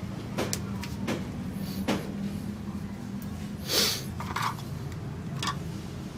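Honda Vario Techno 110 scooter's small single-cylinder engine running steadily at idle, with scattered clicks and knocks and one short hiss a little before the middle.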